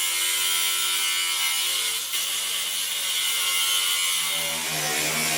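Handheld power saw cutting through the Jeep's sheet-steel dash along a marked line, running steadily with a buzzing rasp; its tone shifts lower about four seconds in.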